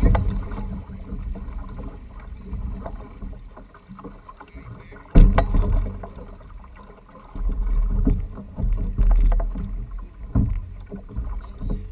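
Water sloshing and slapping against a fishing kayak's hull, with an uneven low rumble and a sharp knock about five seconds in, followed by a few heavier surges.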